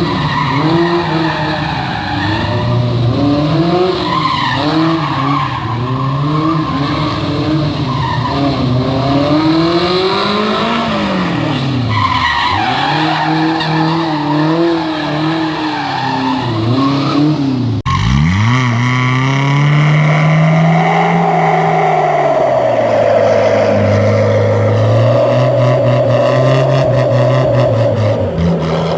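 Jeep engines revving up and down hard with tyres squealing and skidding, the sound changing abruptly twice. Near the end a long, wavering tyre squeal runs over a steadier engine note.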